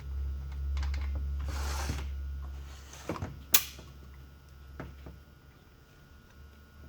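Handling noises around a chainsaw compression test: a low hum that fades out about three seconds in, a short hiss about a second and a half in, then a few clicks and one sharp knock.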